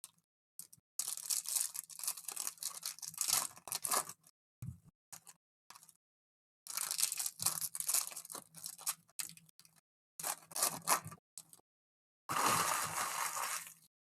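Plastic wrapping on trading-card packs being torn open and crinkled, in four bursts separated by short pauses.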